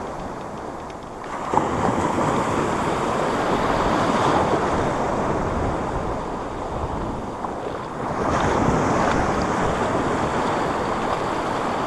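Sea surf washing onto a pebble shore, with wind rumbling on the microphone. The wash swells twice, about one and a half and eight seconds in.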